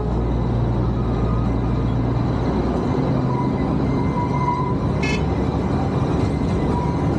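Darjeeling Himalayan Railway toy train running, a steady low rumble, with a brief high-pitched sound about five seconds in.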